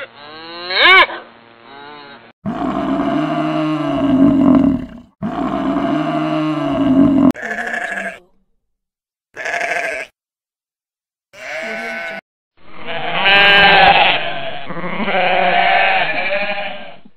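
Farm animal calls one after another: the end of a cow's moo, then a sheep bleating five times, then a goat giving two long, quavering bleats.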